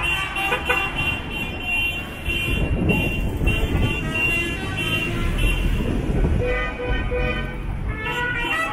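Car horns tooting in repeated short blasts over the rumble of passing cars at a road junction. Near the end comes a run of short tones at changing pitches.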